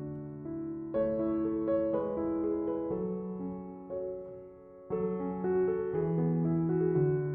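Background piano music: slow, sustained chords, with a brief drop in level just before a new chord comes in near five seconds.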